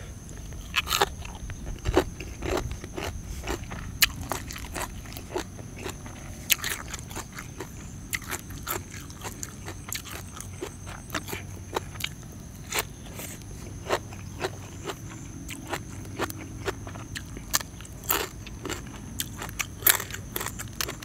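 A person eating grilled rice-field crab close to the microphone: irregular crisp crunches of the shell between bouts of chewing.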